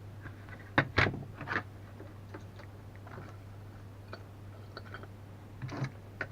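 Small clicks and knocks of objects and tools being handled on a workbench, a cluster of sharp ones about a second in and a couple more near the end, over a steady low hum.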